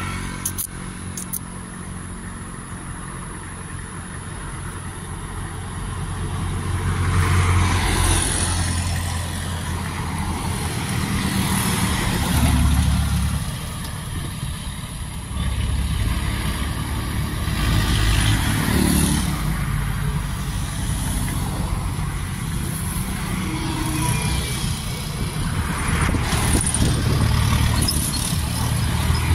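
Fuel tanker truck's engine idling with a steady low hum, while cars and motorcycles pass close by on the road, swelling and fading several times.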